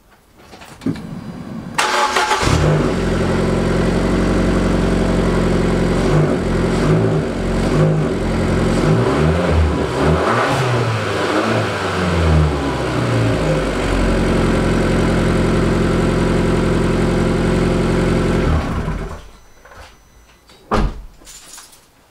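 Fiat Abarth 500's 1.4-litre turbocharged four-cylinder engine cranked briefly and catching about two seconds in, then running steadily with its revs rising and falling a few times in the middle. It is switched off near the end, followed by a single thump.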